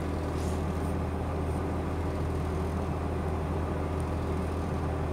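A mobile crane's engine running steadily, heard inside the operator's cab as an even low hum.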